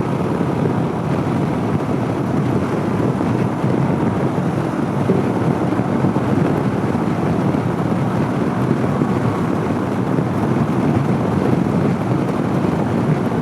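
Steady wind rush on the microphone of a 2014 Honda CB500X motorcycle cruising at highway speed, mixed with the bike's running and road noise.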